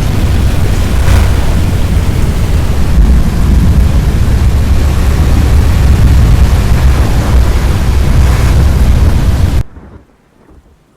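Storm wind and rain battering the microphone in a loud, steady rush with a heavy low rumble. The rush cuts off abruptly near the end.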